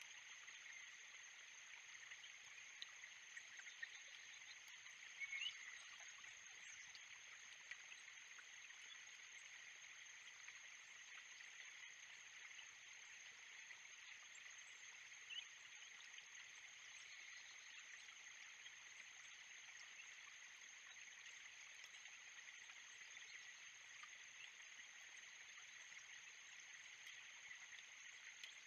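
Faint, steady chorus of calling insects: a constant high hum over a hiss that does not change, with one brief rising chirp about five seconds in.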